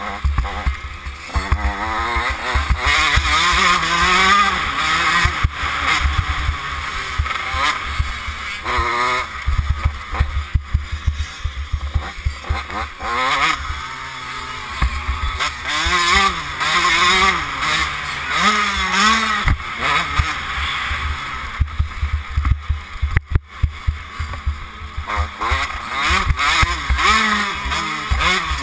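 Dirt bike engine revving up and down again and again while being ridden hard, with heavy wind buffeting on the helmet-mounted microphone.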